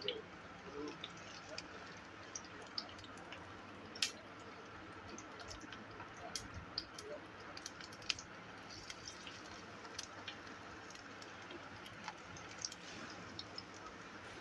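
Patties shallow-frying in hot oil in a non-stick pan: a faint steady sizzle with scattered pops and crackles, the sharpest about four and eight seconds in.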